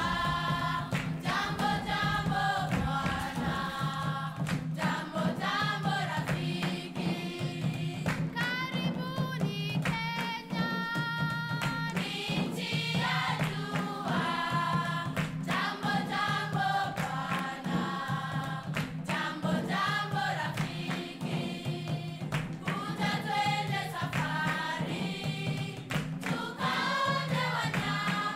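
Background music: a choir singing over a steady low accompaniment.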